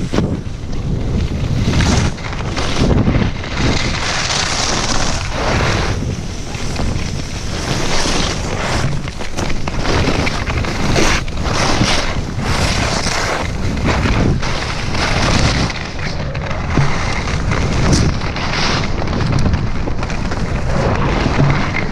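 Wind rushing over the microphone at skiing speed, mixed with the hiss and scrape of ski edges carving through snow; the noise rises and falls unevenly.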